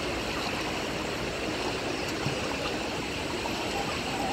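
Shallow rocky river flowing steadily over stones.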